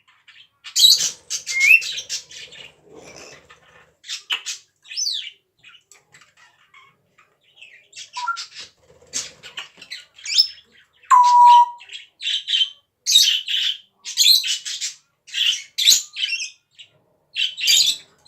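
A pet parrot making a run of short noisy calls and chirps, some sliding up or down in pitch, with one steady whistled note about eleven seconds in.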